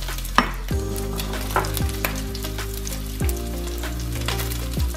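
Meatballs sizzling as they brown in a stainless steel skillet, with background music underneath.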